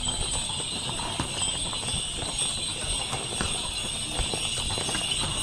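Horseshoes on asphalt: several shod horses walking past, their hooves clip-clopping in an irregular, overlapping patter. A steady high-pitched drone runs underneath.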